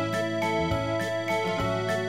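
Background instrumental music: a tune of short notes changing several times a second over a low bass line.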